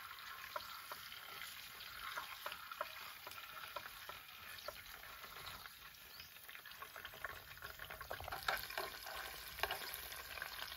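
Quail pieces sizzling as they fry in hot oil in a frying pan, turned with chopsticks, with a steady hiss and scattered pops and clicks; a little louder about eight and a half seconds in.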